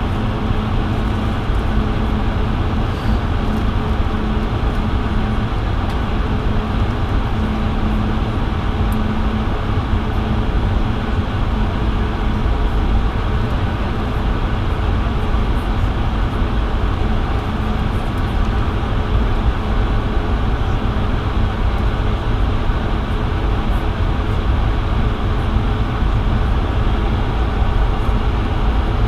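Steady cabin noise inside a Bombardier CS100 airliner with its Pratt & Whitney PW1500G geared turbofans running before takeoff: an even low rumble with a constant engine hum, neither rising nor falling.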